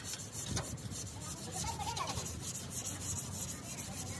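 Hand sanding of a truck cab's steel door panel: sandpaper rubbing steadily over the filler patches.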